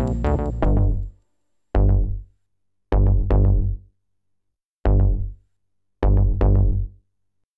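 Electronic soundtrack music with drum machine and synthesizer that breaks off about a second in, followed by short, heavy, bass-rich stabs separated by silence: one, a pair, one, then a final pair ending about seven seconds in.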